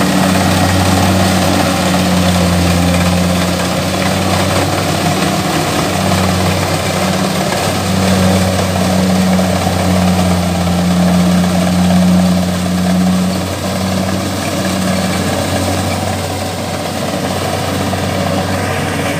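Kubota DC-70 combine harvester's diesel engine running steadily with a low hum while it harvests, growing a little quieter in the second half as the machine moves away.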